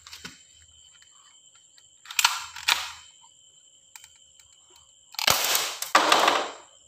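Toy gun firing: two short bursts of gunshot-like noise about two seconds in, then two longer, louder bursts a few seconds later.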